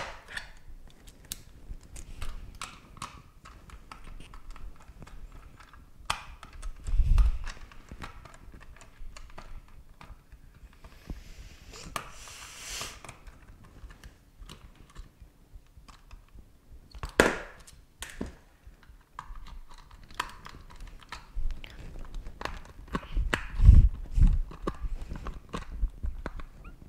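Screwdriver working at the screws of a Jelly Comb wireless mouse's plastic housing: irregular clicks, taps and scrapes of metal on plastic, with a scraping stretch about halfway through and a few heavier thumps against the hard counter.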